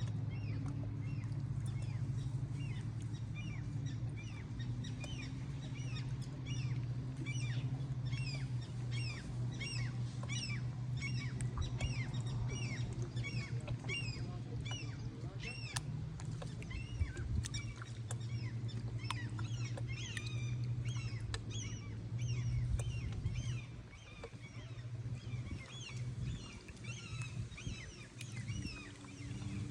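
Many birds calling together, a dense chatter of short chirps several times a second, over a steady low hum.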